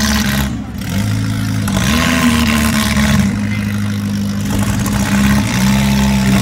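Demolition derby cars' engines running loudly, revving up and dropping back a few times.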